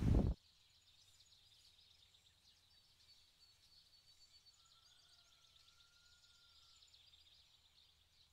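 Gusty wind buffeting the microphone, cut off abruptly about half a second in. Near silence follows, with faint high chirps and one faint long whistle in the middle.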